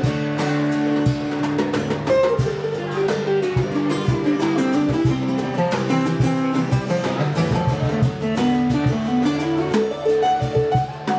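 Live instrumental band music: acoustic and electric guitars with drum kit and congas. A guitar plays melodic runs that climb and fall over a steady drum beat.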